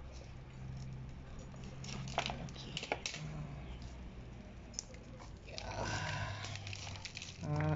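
Fine roots and fibrous potting mix crackling and tearing as a snake plant pup is cut and pulled away from its mother plant, with a few short sharp clicks. A low steady hum runs underneath.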